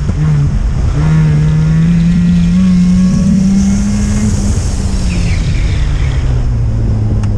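Mazda RX-7's rotary engine, heard from inside the cabin, pulling with its pitch climbing steadily for about three seconds, then winding down as the car lifts off and slows, the pitch falling until the end.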